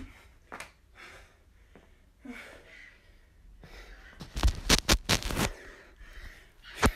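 Short breaths and light movement from someone finishing burpees. About four seconds in comes a run of loud knocks and rubbing as the phone that is recording is picked up and handled, with one more sharp knock near the end.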